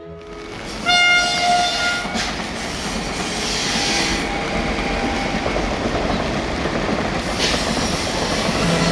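DT-668 steam locomotive sounding its whistle once, for about a second, followed by the steady noise of the train running past.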